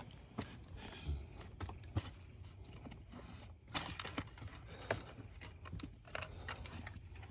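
Scattered light clicks and taps, a dozen or so at irregular intervals, from hands working on car seat parts.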